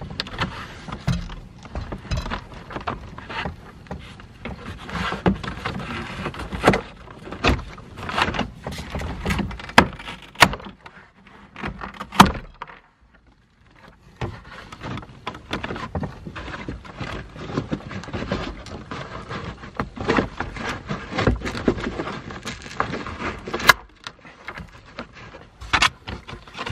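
Irregular plastic clicks, knocks and rustling as a car's headliner and roof trim are worked loose by hand, with a brief lull about halfway through.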